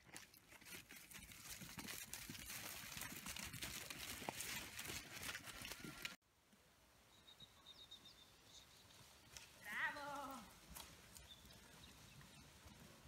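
A sheep bleats once, about ten seconds in: a short, wavering call. Before it, a steady rustling hiss cuts off suddenly about six seconds in.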